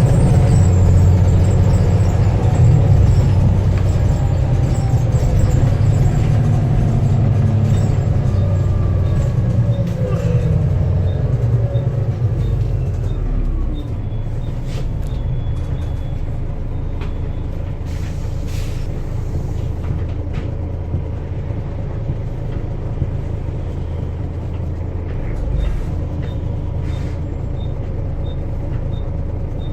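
Volvo B7TL bus's six-cylinder turbo-diesel engine running with a high turbo whistle. About eight seconds in, the engine note and whistle fall away together over several seconds, as when the bus eases off and slows, and the engine then runs on at a lower, steady level.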